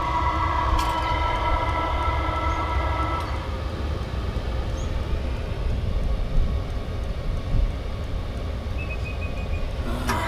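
Chinese diesel air heater running at its 3 Hz pump setting, a steady low rumble from its combustion and exhaust. A higher steady whine sounds over it and stops about three seconds in.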